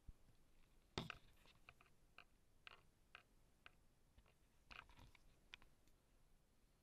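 Faint, scattered clicks and small taps, about a dozen, irregularly spaced. The loudest comes about a second in, and another cluster follows near five seconds.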